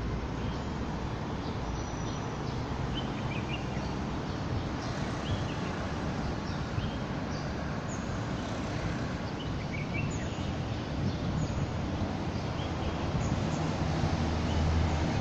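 Steady city traffic noise with scattered short bird chirps over it; a low rumble grows louder near the end.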